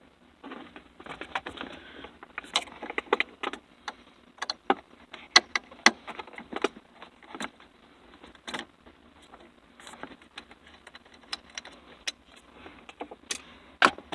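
Irregular sharp clicks, clinks and short rattles of a screw being removed and a plastic dashboard trim piece being worked loose by hand.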